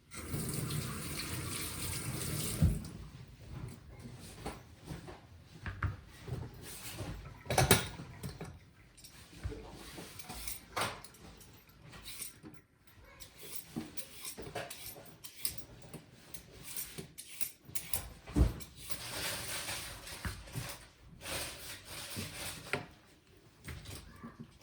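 Kitchen tap running into a sink at the start and again near the end, with scattered knocks and clatter in between.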